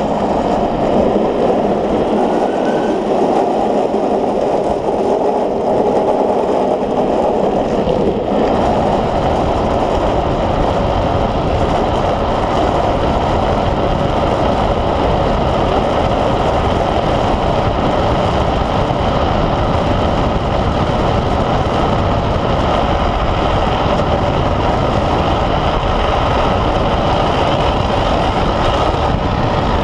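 Steady rush of wind and tyre noise from an unpowered speed trike coasting fast down an asphalt road. About eight seconds in, a heavier low rumble fills in and holds.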